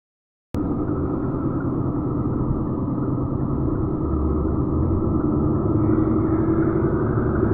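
Traffic and road noise from a car driving at speed on a multi-lane highway: a steady rumble of tyres and engine. It starts suddenly about half a second in.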